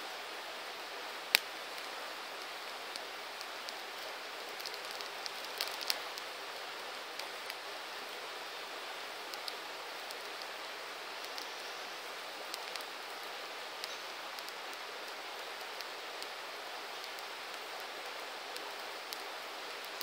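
Campfire burning with a steady hiss and scattered sharp crackles and pops; the loudest pop comes about a second in, with a quick run of pops around five to six seconds in.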